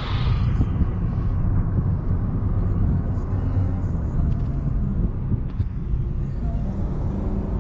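Steady low rumble of a car on the move, engine and road noise, with a hiss that fades away over the first second.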